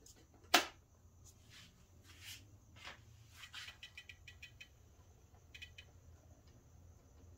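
HO scale model diesel locomotive on the track: a sharp click about half a second in as it is set down, then scattered light clicks and a quick run of small ticks as it creeps slowly along the rails of the double crossover.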